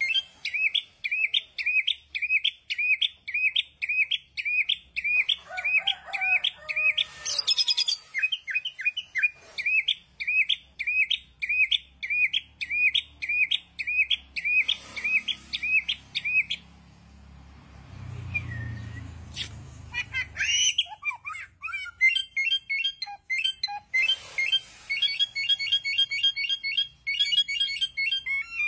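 Caged samyong songbird singing a long run of quick, repeated high chirps, about two a second. A little past the middle it pauses for a few seconds while a low rumble passes, then resumes with faster notes.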